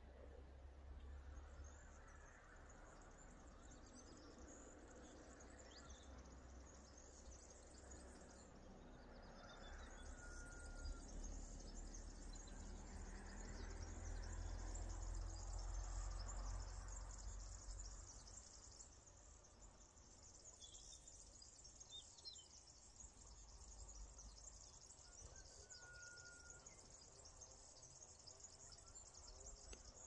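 Faint outdoor ambience: a low rumble that swells in the middle, a steady high hiss, and a few brief, thin bird chirps.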